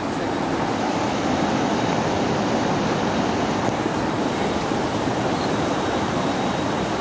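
Steady rushing of river water, an even noise that neither rises nor falls.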